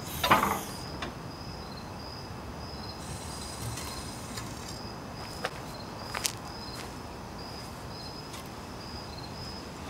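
Crickets chirping steadily in a repeating high pulse. A brief loud noise comes just after the start, and a couple of sharp clicks come about halfway through.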